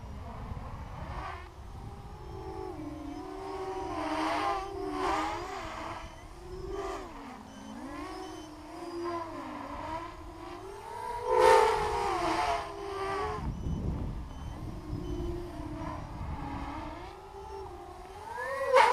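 Racing quadcopter's brushless T-Motor MN2206 motors and HQ 6045 propellers whining in flight, the pitch rising and falling with the throttle. It swells louder on a close pass about eleven seconds in.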